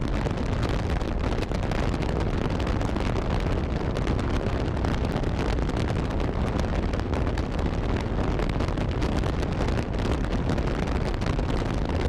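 Steady wind noise rushing over the microphone while riding a motorcycle, with road and engine noise blended in.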